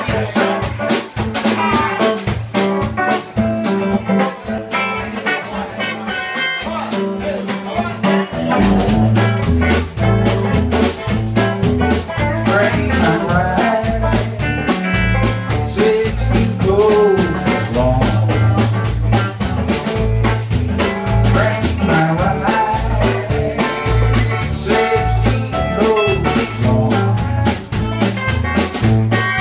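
Live electric blues trio: a Telecaster-style electric guitar, electric bass and drum kit playing together over a steady beat, with the bass line coming in strongly about eight seconds in.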